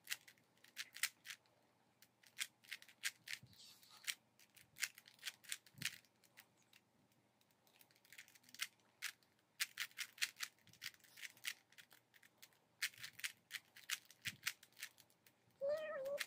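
A plastic 3x3 Rubik's Cube being turned by hand during a solve: quick, irregular clicking and clacking of the layers in bursts, with short pauses between them.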